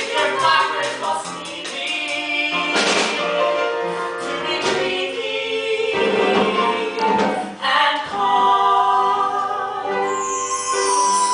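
A musical-theatre song sung with instrumental accompaniment.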